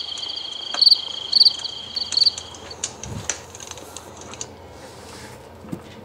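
Video-game night ambience of crickets: a chirp repeating about twice a second over a steady high trill. It cuts off about three seconds in, leaving a few faint clicks.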